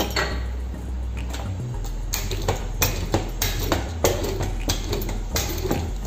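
Wooden rolling pin being worked back and forth over thin noodle dough on a stainless steel table, with repeated irregular knocks and clacks as it strikes and rolls on the steel.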